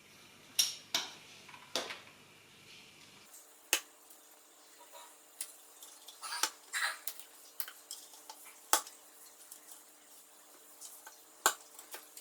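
Irregular sharp plastic clicks and taps as small parts are pressed one by one onto a mechanical keyboard, each snapping into place.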